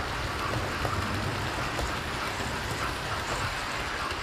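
Model trains running on the layout's track: a steady whirr and rumble of small electric motors and wheels on rails, with faint clicks, as a rake of coaches comes past close by near the end.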